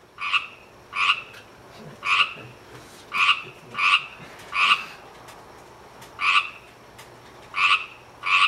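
Pacific tree frog (Pseudacris regilla) giving its ribbit calls: short, loud, pulsed notes repeated about once a second, nine in all, with a pause of about a second and a half midway.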